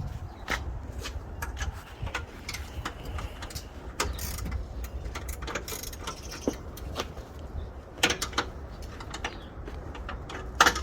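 A ratchet wrench with a long extension and 13 mm socket working a bumper bolt: irregular ratchet clicks and small metal knocks of the tool.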